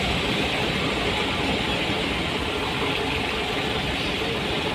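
Steady engine and tyre noise heard from inside a bus cab moving along a wet road.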